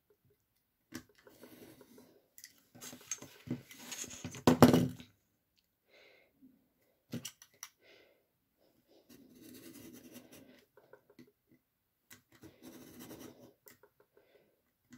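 Craft knife drawn along a steel ruler, scraping through thick card in several short cutting strokes, with the card and ruler shifted between them and one loud knock about four and a half seconds in.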